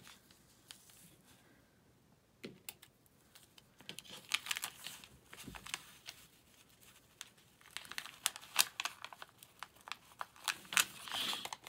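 Foundation paper and fabric being handled while pins are pushed through them: irregular paper crinkling and light clicks, starting about two seconds in.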